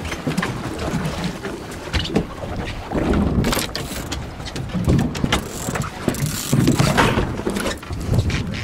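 Wind buffeting the microphone and the rustle and knocks of a handheld camera being moved about aboard a small boat at sea, in irregular surges with several sharp bumps.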